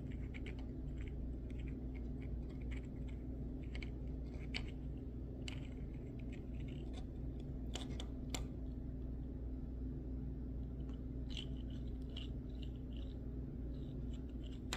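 Paper parts of a handmade paper model engine being handled and fitted together by hand: short scattered scratches and clicks, over a steady low hum.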